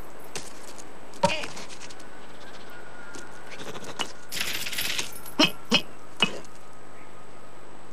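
Cartoon sound effects from an animated sabre-toothed squirrel and its acorn on ice: a sharp click, a crisp clinking, scraping stretch, then three short sharp squeaks or taps in quick succession.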